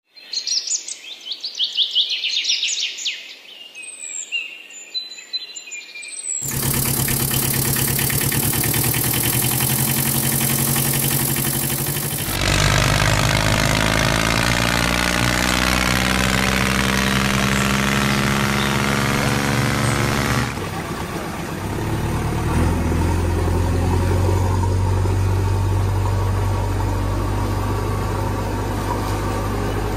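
Bird chirps for about six seconds, then engine sound that runs steadily, shifts to a different engine note with pitch sliding up and down about halfway through, and changes again to a deeper steady drone near the two-thirds mark: engine noise laid over toy tractor and backhoe loader footage.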